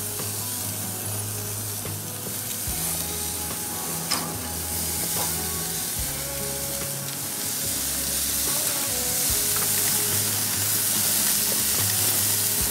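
Steaks and a fish fillet sizzling on a hot gas grill, a steady hiss that grows louder about halfway through as more meat goes onto the grate. A single sharp click sounds about four seconds in.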